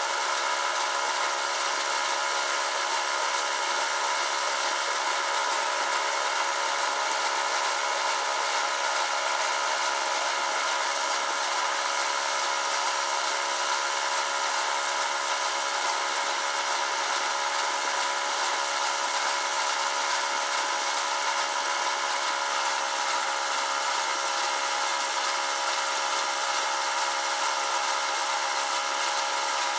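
A steady, unchanging mechanical drone, like a motor running at a constant speed.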